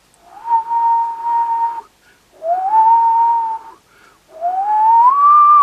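A person whistling three pure tones into an electret microphone as a sine-wave test signal for a microphone preamplifier. Each whistle lasts about a second and a half and slides up into a held pitch; the third keeps rising higher near the end.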